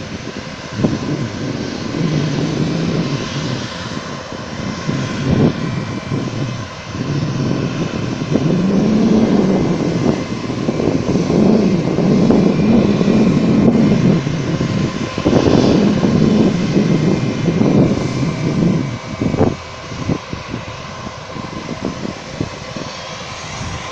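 Bangkok Airways twin-engine jet airliner taxiing, its turbofan engines running at low taxi power. A steady whine sits over a low rumble that swells for several seconds around the middle as the aircraft rolls past.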